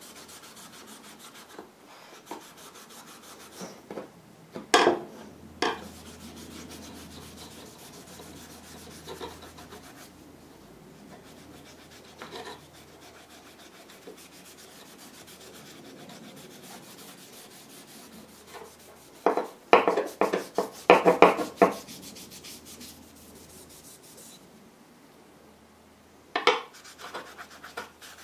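Steel wool scrubbing rust off a knife blade, a steady rubbing hiss of quick back-and-forth strokes. Louder sharp knocks and scrapes come a couple of times about five seconds in, in a rapid flurry around twenty seconds in, and once more near the end.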